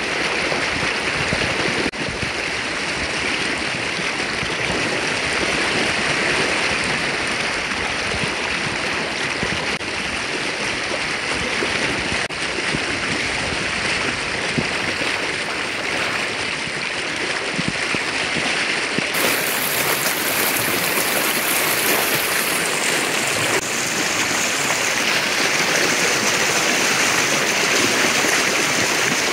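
River water flowing over stones: a steady, even rush of running water.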